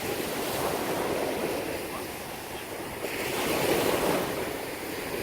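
Gulf surf washing in and breaking on the beach, swelling to a peak a little after halfway, with wind buffeting the microphone.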